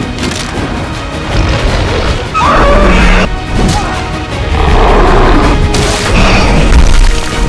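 Music overlaid with heavy booming and crashing sound effects, with two loud noisy swells about two and a half and five seconds in over a steady deep rumble.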